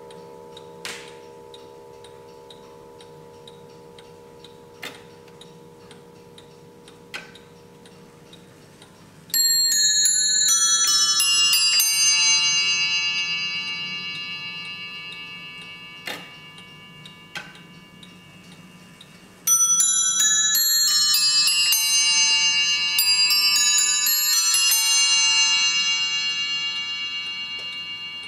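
W&H triple-fusee mantel clock chiming on its bells: a quick run of high ringing notes about nine seconds in, and another about nineteen seconds in, each ringing on and slowly fading. Before the first run, a low hum dies away and a few sharp clicks come from the movement.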